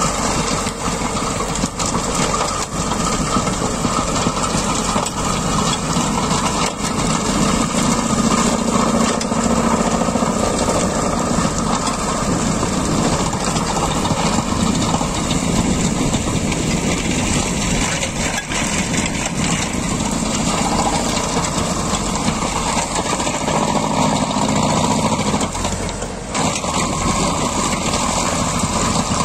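ELİBOL tractor-mounted stone crusher breaking field stones, its rotor making a dense, irregular clatter of knocks over the steady running of the tractor's diesel engine under load. The noise dips briefly near the end.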